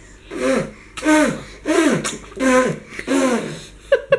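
A baby makes five short voiced splutters in a steady rhythm, each falling in pitch and carrying a spraying hiss, as she blows water out of her mouth.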